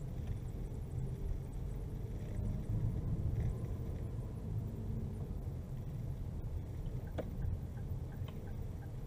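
Car driving slowly, with a steady low rumble of engine and tyres. About seven seconds in, a click, then a light regular ticking about two times a second: the turn-signal indicator, switched on for a turn at the junction.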